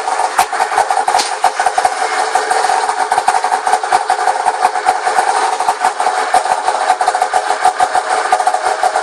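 2005 Arctic Cat M5 snowmobile's two-stroke engine idling steadily with a rapid, uneven popping, just after starting on the first pull.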